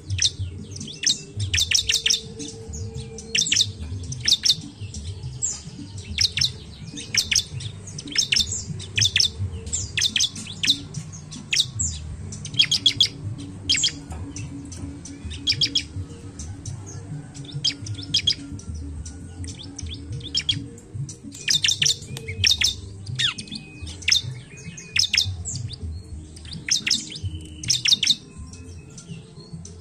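Bar-winged prinia (ciblek) calling: rapid runs of short, sharp, high chirps with brief pauses between runs, over a low background rumble.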